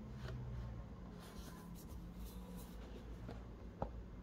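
Faint rubbing and scraping of hands handling a cardboard box, with one sharp tap near the end, over a low steady hum.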